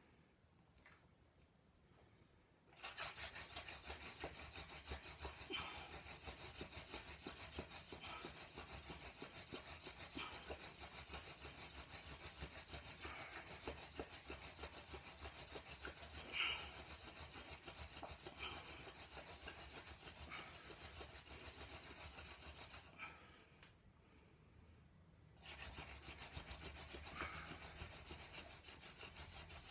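Hand-drill friction fire: a burdock spindle spun back and forth between the palms, grinding into a willow hearth board with a fast, steady rubbing. It starts about three seconds in, stops for about two seconds near the end, then starts again.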